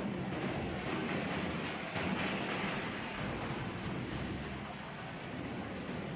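Sea surf: waves washing in as a continuous rush, swelling louder about two seconds in.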